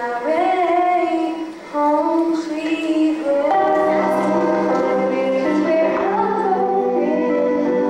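A girl singing a song with musical accompaniment, which fills out about three and a half seconds in.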